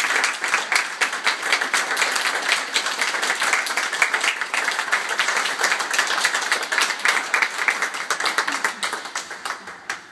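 Audience applauding, dense hand-clapping that fades away over the last couple of seconds.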